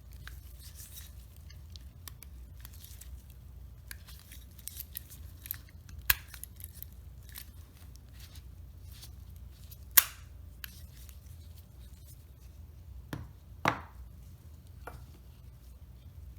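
Schlage lever door handle being handled and pushed onto its stem: scattered faint metal clicks and taps, with three sharper clicks about six, ten and nearly fourteen seconds in, the one at ten the loudest.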